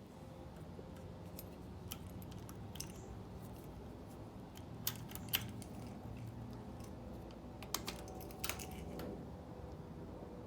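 Faint steady low hum from a Harley-Davidson motorcycle that won't start, which the owner suspects is its fuel pump, with a few light clicks scattered through.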